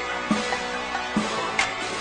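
Background rap instrumental with a slow, sparse beat: low drum thumps about a third of a second in and again just past one second, and a sharp snare-like hit near the end.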